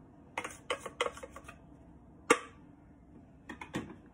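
Metal spoon clinking and tapping against a plastic tub and a stainless steel mixing bowl while milk powder is scraped into flour: a run of sharp clinks in the first second and a half, one loudest clink a little past two seconds in, and a quick group of clinks near the end.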